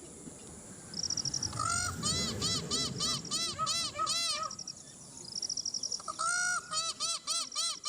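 Peafowl calling in rapid series of short, arched honking notes, about four a second, in two bouts with a pause of about a second and a half between them.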